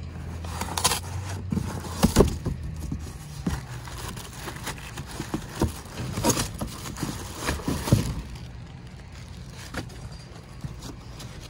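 Cardboard boxes being opened and rummaged through by gloved hands: flaps scraping and rustling, with irregular knocks, the sharpest about two seconds in and again near eight seconds.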